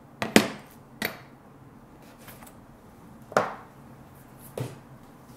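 Hard plastic and metal parts being handled and set down on a work board: five sharp clacks, the loudest about half a second in and another just past three seconds in.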